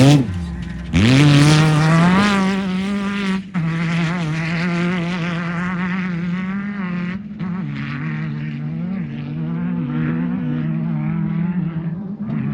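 Off-road race car engine revving up hard about a second in, dropping briefly near three and a half seconds as it shifts gear, then running at high revs that rise and fall with the throttle.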